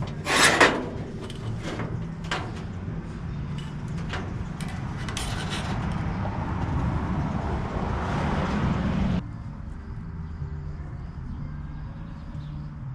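Tools and metal being handled in a workshop: a sharp clatter about half a second in and scattered knocks and clicks. A few seconds later comes a steady rushing noise that builds for about four seconds and cuts off suddenly. A low hum runs underneath throughout.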